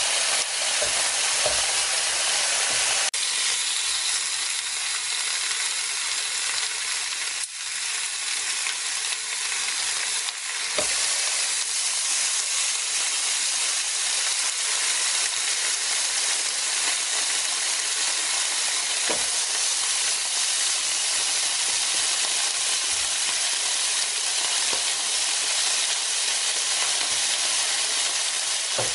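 Slices of pork sizzling steadily on a round Korean BBQ tabletop grill plate, with a few light clicks as metal tongs turn the meat against the plate.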